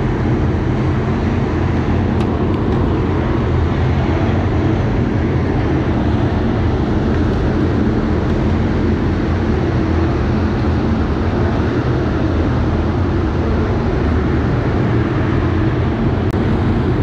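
Dirt late model race cars with crate V8 engines running on the track, a loud, steady engine noise throughout.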